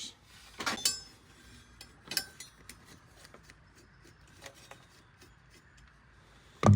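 Old metal radiator bleeders clinking and clicking as they are handled, a few sharp clinks and scattered light ticks, then one louder knock near the end.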